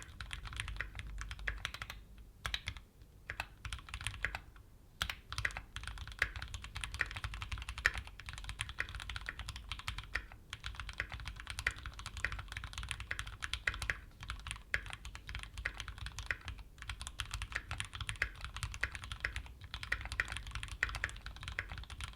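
Fast, continuous typing on a Keychron Q5 mechanical keyboard fitted with Gateron G Pro Brown tactile switches, a dense run of key clicks broken by a few brief pauses.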